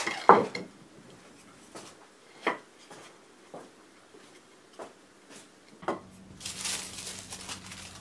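Walnut box parts being handled on a wooden workbench: a sharp knock just after the start, then several lighter taps. About six seconds in, a rough rubbing hiss of sandpaper on the wood begins.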